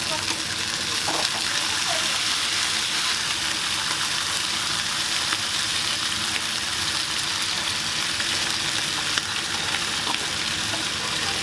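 Food frying on a hot griddle at a Korean street toast stall, a steady sizzle.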